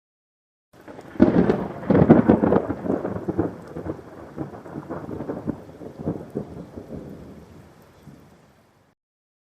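A thunderclap: a sudden loud crack about a second in, then crackling rumbles that slowly die away over about seven seconds.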